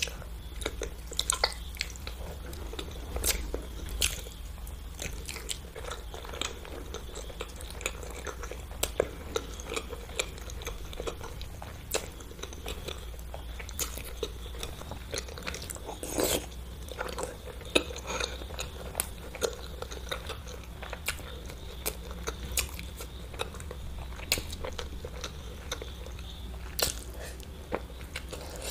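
Close-miked eating of peeled boiled eggs dipped in spicy gravy: soft bites and wet chewing, with frequent irregular sharp mouth clicks and smacks.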